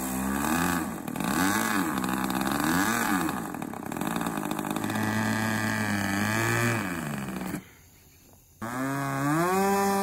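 Super Tigre Bluehead two-stroke glow engine of a radio-control model plane running, its revs rising and falling several times as the throttle is worked. The sound drops out for about a second near the end, then the engine revs up and holds a steady high pitch.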